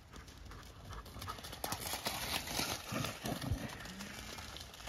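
Dogs running hard across wet grass close by, their paws thudding and swishing through the turf in quick, uneven beats, loudest from about one to four seconds in.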